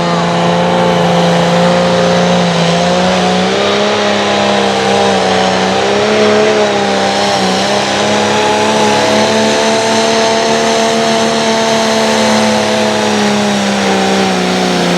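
Pulling tractor's competition engine held near full throttle during a pull with the sled. Its pitch stays high and steady with small wavers, dipping briefly near the end.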